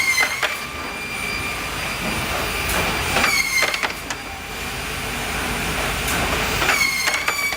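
Woodworking production line for drawer parts running, a steady machine din with a work cycle that repeats about every three and a half seconds: a clatter and a short whine that dips in pitch, three times.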